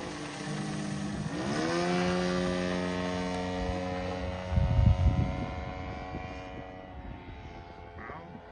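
The 3W-157 two-stroke petrol engine of a Fliegerland Sportsman RC model plane running in flight. Its pitch rises about a second in, then holds steady and fades near the end. A brief low rumble about halfway through is the loudest moment.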